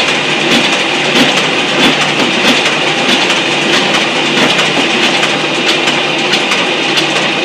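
Single-colour Hamada offset press running a print job, with its vacuum pump on, as sheets feed through and come out. It runs steadily with a regular, repeating clack from the machine's cycle.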